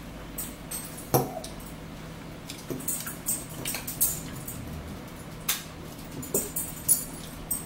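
Forks clinking and scraping on plates, with close-up wet, crunchy chewing of cucumber and lettuce salad. A sharp clink with a brief ring about a second in is the loudest sound.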